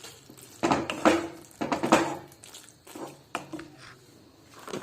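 A spoon scraping and knocking in a kadai of cooked Maggi noodles, several separate strokes with soft squishy noodle sounds between them.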